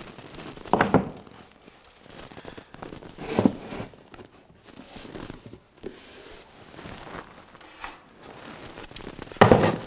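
Handling noise from a long strip of flexible crown moulding being pressed against a wall and ceiling: scattered rubbing and rustling with a few dull thumps, the loudest one near the end.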